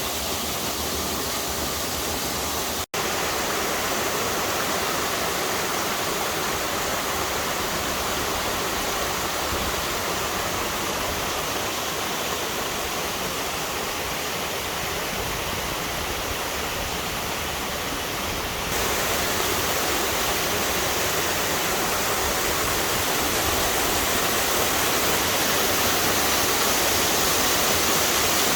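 Steady rush of a waterfall's falling water. It drops out for an instant about three seconds in and runs a little louder from about two-thirds of the way through.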